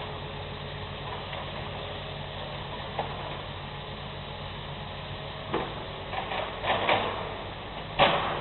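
Demolition machinery: an engine running steadily under a few sharp knocks and crunches, with a cluster of them late on and the loudest just before the end.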